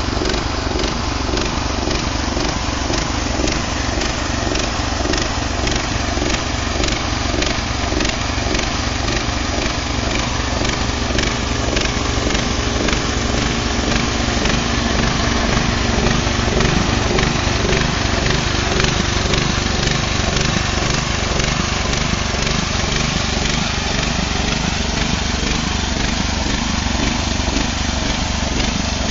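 Portable band sawmill running steadily, its bandsaw blade slicing a plank from a log.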